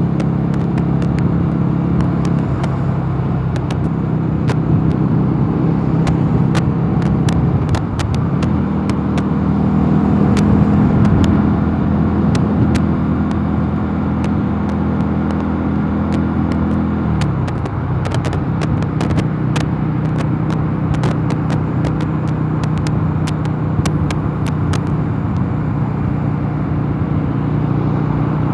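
Mondial Nevada 250 motorcycle engine running steadily under way. Its pitch rises a step about eight seconds in, holds, and falls back just after seventeen seconds, with scattered sharp clicks throughout.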